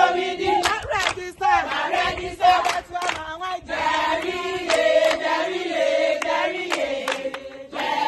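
A group of people singing and chanting together, with scattered hand claps.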